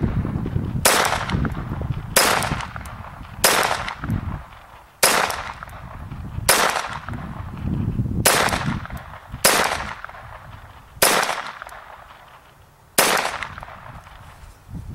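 Ruger SR22 .22 LR semi-automatic pistol firing nine single shots, spaced about one to two seconds apart, each a sharp crack with a short fading tail.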